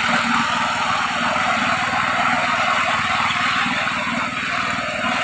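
Small engine of a portable cement mixer running steadily, a fast even beat with a hiss over it.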